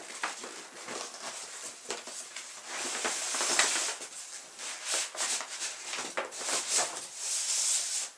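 Cardboard packaging being handled: an inner box slid out of its cardboard sleeve and a cardboard insert lifted off a polystyrene tray, making scraping and rustling with small knocks throughout.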